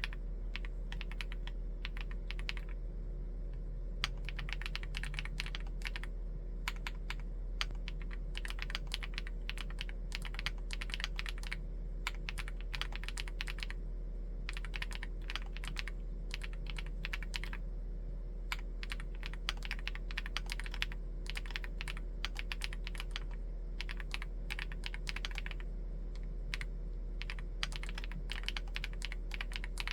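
Typing on a Chilkey ND75 full-aluminium mechanical keyboard with Gateron EF switches: runs of fast keystrokes with short pauses between them, over a steady low hum.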